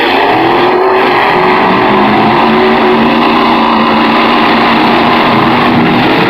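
Pickup truck engine held at high revs, a loud, steady drone whose pitch barely changes.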